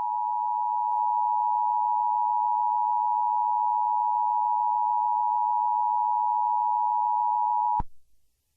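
Emergency Alert System attention tone: a steady, shrill electronic alarm tone held unchanged with a little hiss under it, cutting off abruptly about a second before the end.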